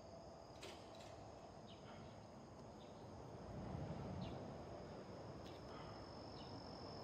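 Faint outdoor ambience with insects trilling steadily, a few short faint chirps over it.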